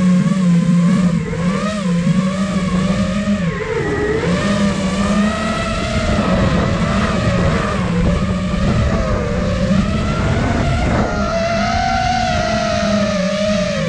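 The four brushless motors and propellers of an iFlight Nazgul Evoque F5 FPV quadcopter whining in flight, the pitch wavering up and down with throttle. The pitch drops briefly about four seconds in, then climbs again.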